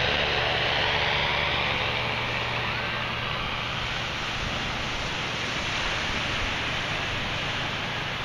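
Small propeller plane's engine droning as it flies away, fading gradually, under a steady hiss of surf and wind.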